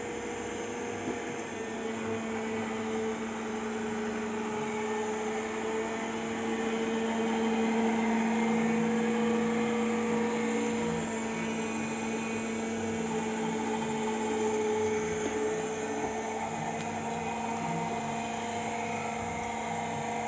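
Robot vacuum cleaner running, a steady motor hum and whine that grows louder toward the middle and then eases slightly.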